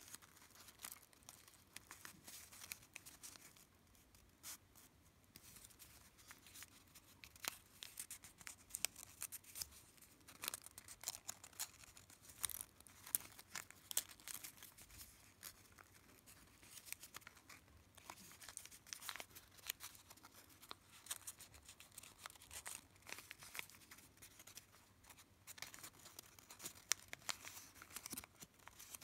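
Faint rustling and crinkling of folded origami paper being handled, slid and tucked together, in many short, irregular scratchy rustles.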